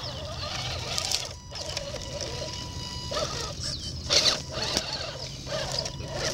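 Scale RC crawler truck (a Tamiya Highlift Ford F350) crawling over dirt and dry leaves close by: a faint steady electric-motor whine, with crackling and rustling of the tyres and body against dry debris. The crackling is loudest about four seconds in, as the truck passes closest.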